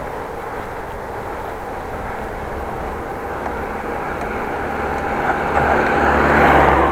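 Steady outdoor road noise of a bicycle ride, with a motor vehicle's engine growing louder over the last couple of seconds as it comes close.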